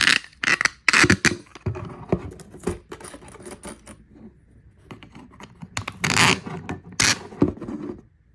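Small metal screws clicking and scraping against a 3D-printed plastic jig piece as they are handled and pushed into its holes. The sound is an irregular run of clicks and scrapes, loudest at the start, about a second in, and again around six and seven seconds in.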